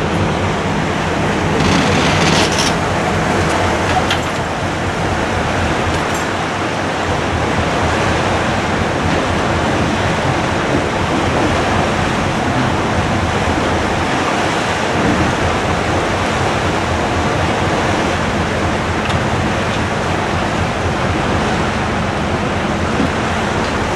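Wind on the microphone and water rushing past the hull of the coastal ship MS Nordkapp under way, a steady rush of noise. A low hum sits under it for the first couple of seconds.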